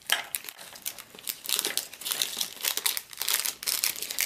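MRE ration packets, plastic bags and foil-laminate pouches, crinkling and rustling as they are picked up and handled: an irregular, rapid run of crackles.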